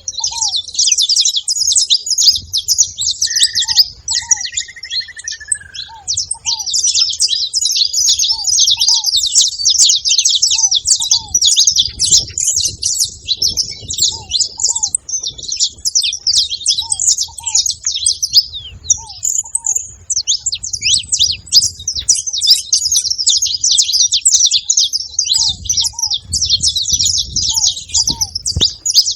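Saffron finches chattering, many high chirps overlapping without a break, as from a flock. Under them a short low note repeats about once a second, and a brief drawn-out whistle comes a few seconds in.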